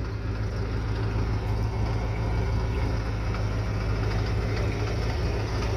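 Engine of a 1966 Ford welding truck idling steadily with a low, even rumble.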